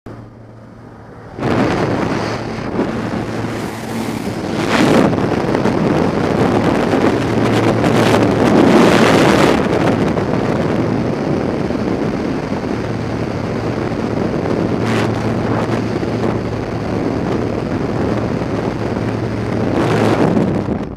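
Loud rush of wind through the open door of a small high-wing plane in flight, buffeting the microphone, with the steady drone of the aircraft's engine and propeller beneath it. It starts suddenly about a second and a half in.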